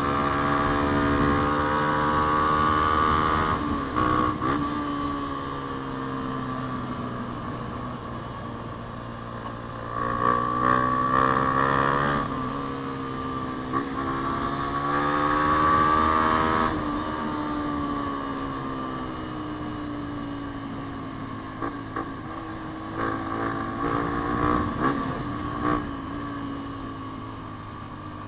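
Yamaha Sniper 150's single-cylinder four-stroke engine through an aftermarket JVT exhaust pipe, pulling through the gears: the revs climb and drop sharply several times. Near the end it runs more quietly, with a few short sharp sounds.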